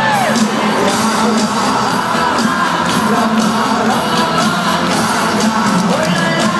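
Live pop music from a stadium PA at a concert, heard from within the crowd, with fans whooping and cheering over it; a rising-and-falling whoop stands out near the start.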